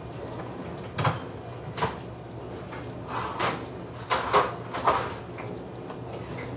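Kitchen cabinet doors and pans knocking and clattering as someone rummages through the cupboards for a pan: several separate knocks a second or so apart, the loudest cluster about four seconds in, over a low steady hum.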